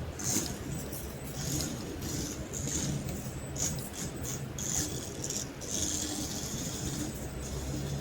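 Small electric RC toy car's drive motor and gears whirring in short, irregular bursts as it is driven back and forth in high-speed mode, with some rattling and scraping on the tabletop.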